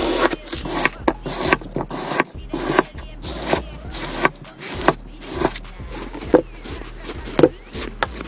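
Slime being pressed and worked by hand, giving a string of short, irregular pops and clicks.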